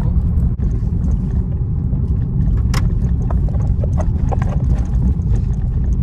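Car driving, heard from inside the cabin: a steady low rumble of road and engine noise, with a few light clicks.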